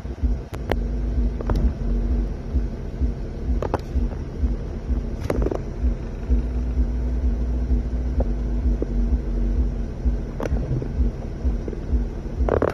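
Off-road vehicle driving slowly over a snowy trail: a steady low rumble of engine and tyres with an even engine hum, broken by a few sharp knocks and clunks as it rides over bumps.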